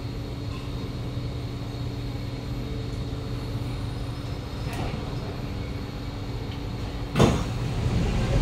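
Steady hum inside a stationary Kawasaki Nippon Sharyo C751B MRT car. About seven seconds in, the passenger doors slide open with a sudden loud burst.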